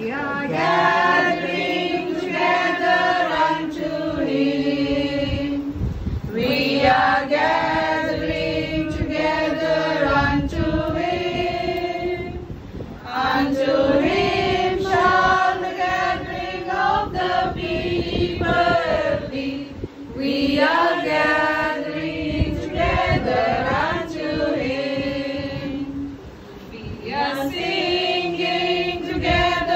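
A small group of people singing a hymn together, in phrases of long held notes with brief pauses between them.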